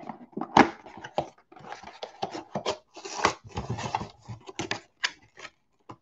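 Cardboard trading-card hobby box being torn open and handled: an irregular run of rips, scrapes and taps of cardboard, the sharpest about half a second in.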